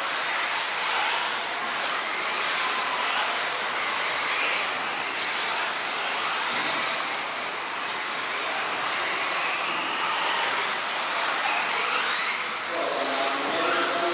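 Several 4WD off-road RC cars racing together: their electric motors whine high, rising and falling over and over as they accelerate and brake, over a constant hiss of tyres on the track.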